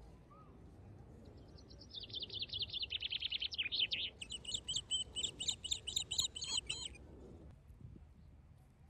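A songbird singing a long, rapid trill that falls in pitch, then runs straight on into a second rapid series of higher, clipped notes. The song starts about a second in and stops abruptly at about seven seconds, over faint outdoor background noise.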